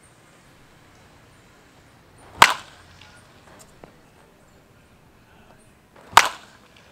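Baseball bat hitting pitched balls: two sharp cracks about four seconds apart.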